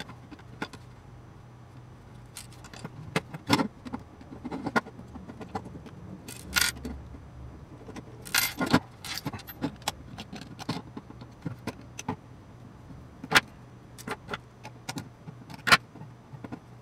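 Irregular metal clinks and clatters from a gear-train assembly between aluminium plates being handled and taken apart by hand, with loose gears and small parts knocking together.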